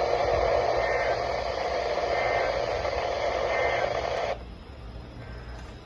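Radio static: a steady hiss over a low hum that cuts off suddenly about four seconds in, leaving only the quieter hum.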